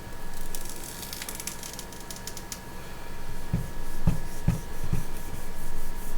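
Rubbing and pressing on a glass screen protector laid over a 3D printer's LCD screen to work out air bubbles and dust: scratchy rubbing strokes, with four short dull thumps in the middle.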